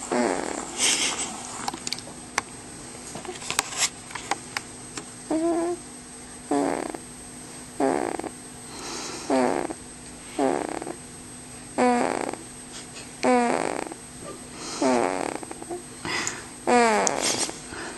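Snoring in quick, regular breaths, each a short squeaky pitched snore, about one every one and a half seconds from about five seconds in, with a few clicks and rustles before.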